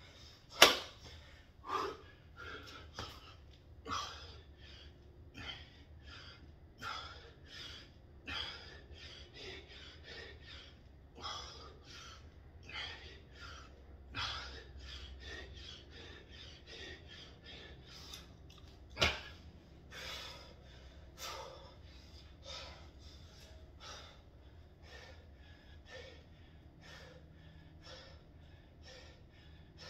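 Heavy, quick breathing of a man exerting himself during a burpee workout, short breaths at about one to two a second. Two sharp knocks stand out, one just after the start and one about two-thirds of the way through.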